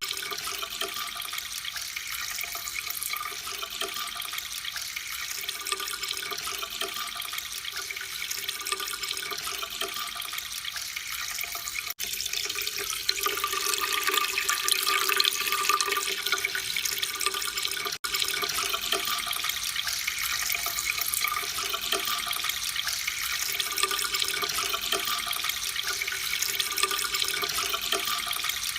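Steady running-water sound effect, a stream splashing with an even hiss, used as a peeing sound. It gets a little louder about twelve seconds in and cuts out very briefly twice.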